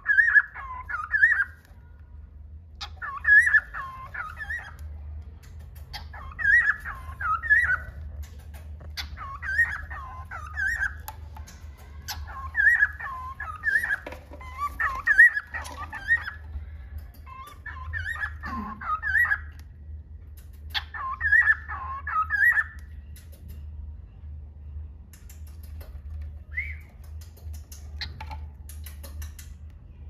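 Cockatiel singing: a short warbling whistled phrase of rising and falling notes, repeated about every three seconds, which stops about three quarters of the way through, leaving a single chirp after it.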